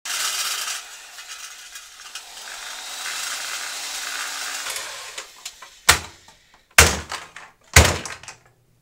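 A hissing, clattering noise, then three loud bangs about a second apart.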